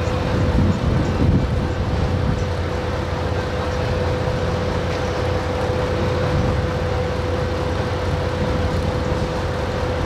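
Heavy machinery running steadily: a low engine rumble with a constant mid-pitched whine.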